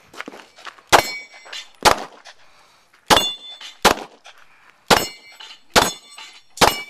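Glock 9mm pistol fired seven times in quick succession, about one shot a second, most shots followed by the ring of a struck steel plate.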